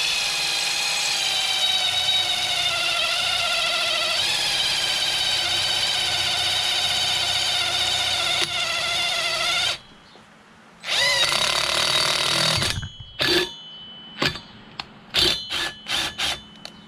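Cordless drill boring a hole through a metal lawn-tractor pulley hub: a steady whine for about ten seconds, a short pause, a second run of about two seconds, then several short trigger bursts near the end.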